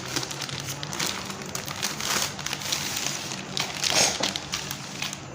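Wrapping crinkling and rustling as a small gift package is unwrapped by hand, with louder crackles about two and four seconds in.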